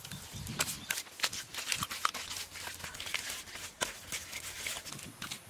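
Hands pressing and smoothing wet mud along the ridge of a mud roof: irregular soft pats, crackles and rustles.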